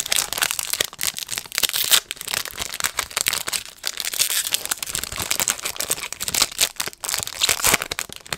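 Foil wrapper of a 2020 Topps Chrome baseball card pack crinkling and tearing as it is pulled open by hand: a continuous dense crackle of sharp crinkles.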